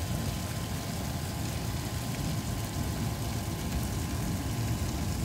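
Steady low rumble of vehicle engines idling and running, with no distinct events.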